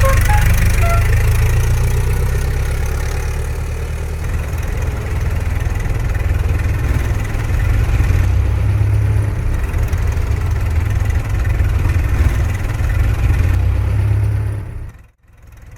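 Old car's engine running steadily at a low idle, with a deep rumble. It stops abruptly near the end.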